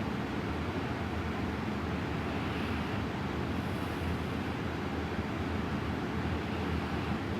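Steady low rumbling noise, with faint breaths about every four seconds from a sleeping woman breathing quietly; no clear snores.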